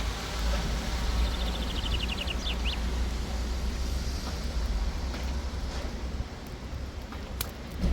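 Outdoor ambience: a steady low wind rumble on the microphone over a general background hiss, with a quick high trill of chirps between about one and three seconds in.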